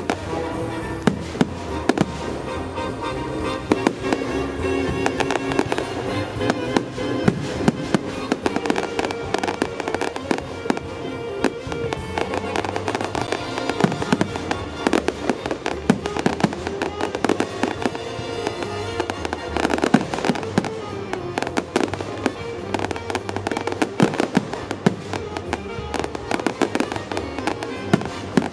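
Fireworks display: shells bursting and crackling in rapid, irregular succession, with music playing along.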